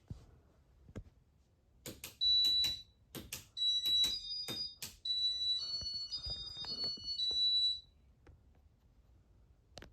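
A run of sharp clicks mixed with high electronic beeps. The beeps step between a few pitches for several seconds, then stop.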